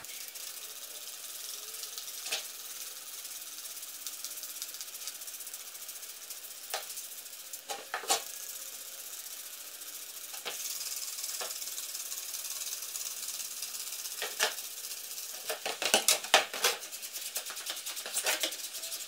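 Hand trigger spray bottle spritzing mineral spirits onto a cotton canvas tarp to waterproof it: single squirts every few seconds over a steady hiss, then a quick run of squirts near the end.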